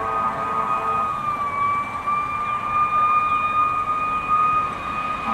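Siren of a Pierce fire rescue truck sounding a steady high wail, dipping slightly in pitch and settling about one and a half seconds in. A lower, chord-like horn blast sounds with it during the first second and then stops.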